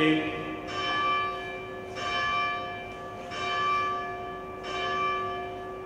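A church bell tolling, struck four times at an even pace a little over a second apart, each stroke ringing on into the next.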